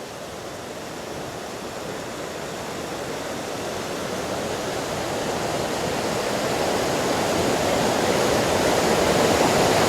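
Creek water rushing over boulders: a steady, even rush that grows gradually louder throughout.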